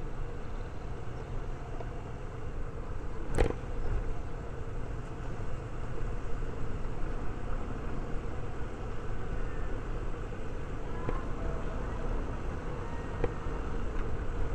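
Suzuki Every Wagon (DA64W) kei van driving slowly on a town street: steady low engine and tyre rumble with a faint steady hum, and a single sharp knock about three seconds in.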